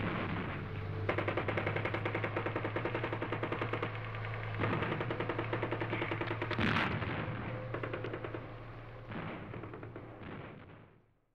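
Rapid machine-gun fire in overlapping bursts over a steady low hum, with fresh bursts starting about 1, 4.5 and 9 seconds in. It fades out near the end.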